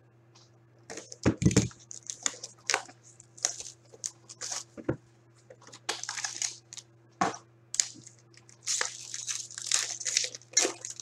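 Packaging of a hockey card box being opened by hand, with repeated irregular crinkling and tearing rustles. There is one low knock about a second and a half in, over a faint steady hum.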